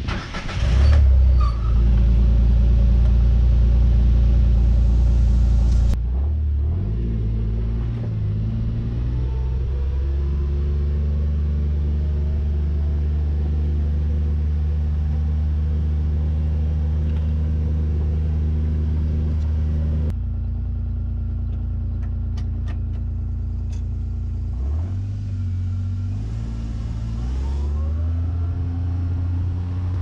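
Kawasaki Mule utility vehicle's engine is started with the key about a second in and runs steadily. It then drives along a dirt track, the engine note rising and falling as it speeds up and slows.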